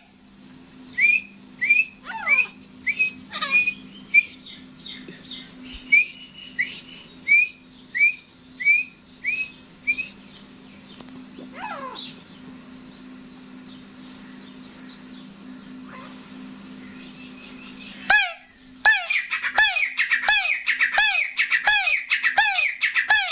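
Gray francolin calling: a string of short, clear whistled notes, each sliding upward, for the first ten seconds. After a quieter gap, a loud, fast run of falling notes starts about 18 seconds in, at roughly three a second. A low steady hum lies underneath until the loud run begins.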